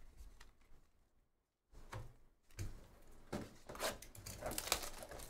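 A shrink-wrapped cardboard box of trading cards being picked up and handled: short scrapes and crinkles of the plastic wrap, starting a couple of seconds in and getting busier toward the end.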